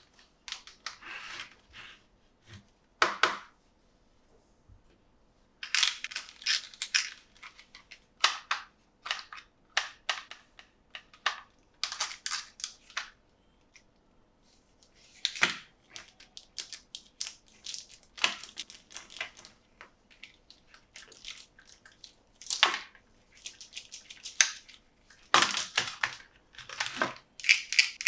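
Toy packaging being handled and opened: irregular crinkling and tearing noises broken by sharp plastic snaps and clicks, with short pauses between them.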